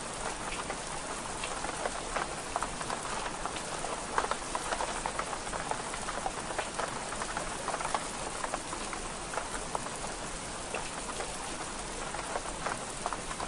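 Steady rain on window glass mixed with a crackling wood fire, giving many small irregular ticks and pops. One pop about four seconds in is louder than the rest.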